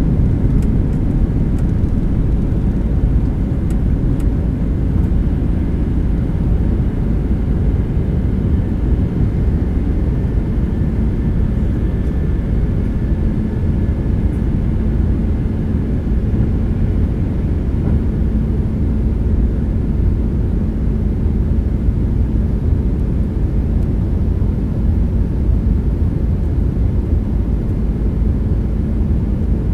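Cabin noise inside a Boeing 767-300ER during takeoff and the initial climb: a loud, steady rumble of the engines and airflow. A faint steady hum joins in about halfway through.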